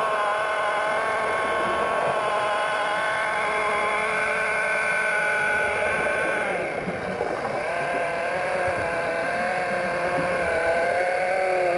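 Underwater polishing machine running on a propeller's hub cone, heard through the water as a steady whine whose pitch wavers. The whine dips and changes pitch for a moment about seven seconds in, then settles again.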